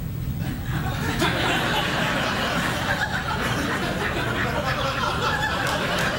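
Studio audience laughing, the laughter swelling about a second in and then holding steady.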